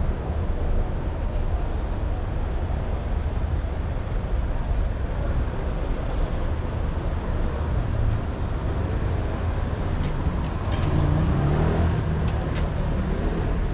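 Street traffic on a city high street: a steady low rumble of passing vehicles. A louder engine-like hum rises and falls from about two-thirds of the way through, with a few short clicks near the end.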